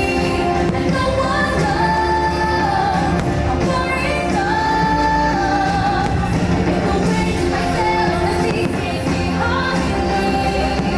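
Fireworks show soundtrack: loud, steady music with a sung vocal line.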